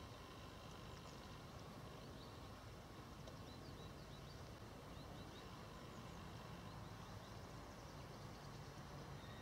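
Quiet forest ambience under a faint low hiss, with scattered faint, short high-pitched chirps of small birds through the middle.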